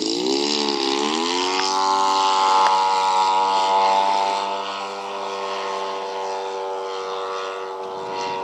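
Zenoah G-38 two-stroke gas engine of an RC model plane with its propeller, wavering in pitch for about a second, then rising to a steady high full-throttle note as the plane takes off and climbs away. The note eases slightly about halfway through and holds steady to the end.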